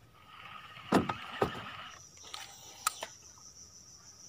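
Baitcasting reel whirring for about two seconds, with two sharp knocks in the middle. From halfway through, a steady high insect drone continues.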